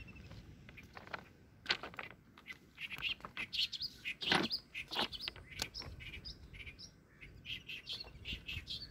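Birds chirping in short, quick calls all through, with a few sharper clicks among them, the loudest about halfway through.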